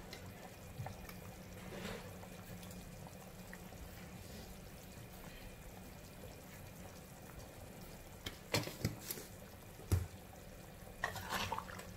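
Chili broth simmering gently in a wok on a gas stove, with a few light clicks of a spoon against the pan.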